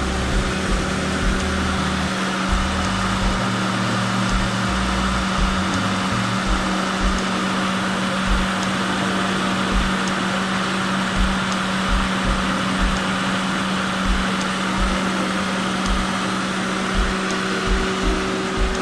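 Steady machine hum with a constant low tone, broken by irregular low thumps.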